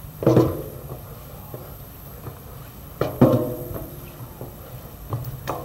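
Footsteps on a metal staircase: a handful of clanging footfalls on the steel treads, each ringing briefly, with a double clang about three seconds in.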